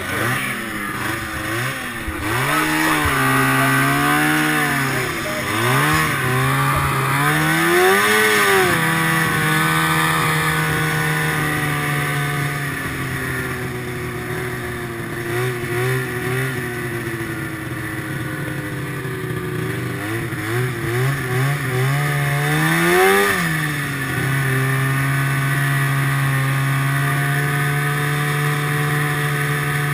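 A 1974 Rupp Nitro snowmobile's two-stroke engine heard from on board the sled. It revs up and down repeatedly through the first ten seconds and again briefly about twenty-three seconds in, then runs steadily at low speed.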